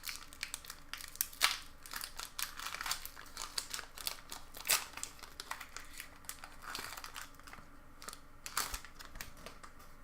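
Foil wrapper of a Pokémon Evolutions booster pack being torn open and crinkled by hand: a dense run of irregular crackles that thins out in the second half.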